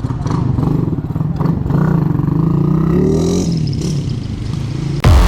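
Motorcycle engine running, revving briefly with a rise and fall in pitch about three seconds in. Electronic music cuts in just before the end.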